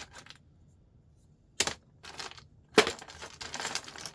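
Small plastic RJ45 plugs being handled: a sharp click about a second and a half in, a louder knock just under three seconds in, then steady clattering and rustling as the plugs are worked.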